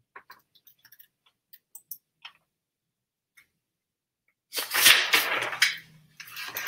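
Pages of a large hardcover picture book being handled and turned: a few small taps and clicks, then a louder paper rustle about four and a half seconds in, and a shorter one near the end.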